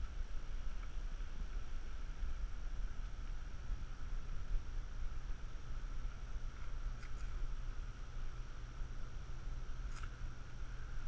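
Wind buffeting the microphone: an uneven low rumble, with a faint steady hiss above it and a couple of faint ticks near the end.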